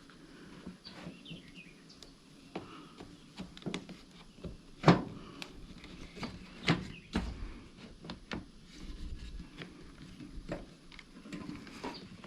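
Scattered light clicks and knocks of hands fitting wiring and a small part back into a leaf blower's housing, loudest about five seconds in and again near seven.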